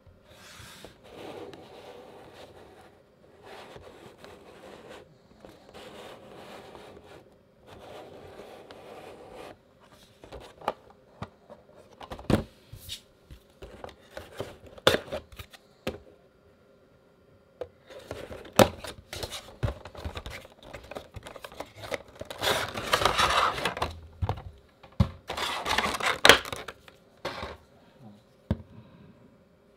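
A Funko Pop vinyl figure's cardboard window box being opened by hand: sharp clicks and scrapes of the cardboard flap and box, then two longer spells of crinkling and rustling as the figure and its plastic insert come out. A soft, evenly repeating sound comes before, in the first ten seconds.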